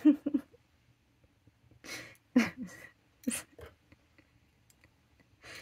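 A woman's voice making a few short, quiet murmured sounds with breaths between them, not clear words.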